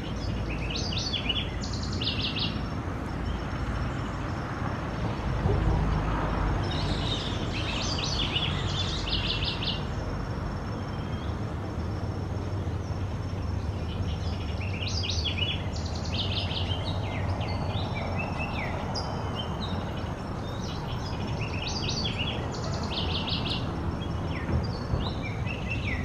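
Perched hummingbird singing: four bouts of high, thin, rapid chirping notes, each lasting a couple of seconds, several seconds apart. A steady low background rumble runs underneath.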